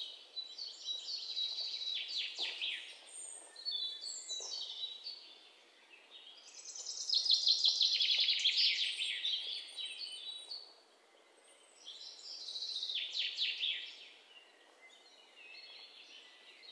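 Songbirds chirping and trilling in quick runs of high notes, in several bouts with short pauses between, the loudest in the middle.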